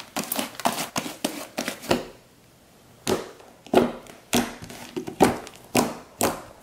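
Blue slime made with instant snow being squeezed and pressed by hand, giving a quick run of wet clicks and crackles. The sound stops for about a second in the middle, then fingers pushed into the lump set off more scattered, louder snaps and pops.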